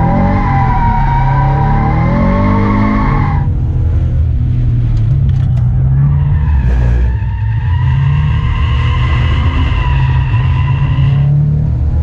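Toyota 86's flat-four engine running hard while its tyres squeal in a slide, heard from inside the cabin. The squeal breaks off about three and a half seconds in, leaving the engine, and returns at a higher pitch from about six seconds until near the end.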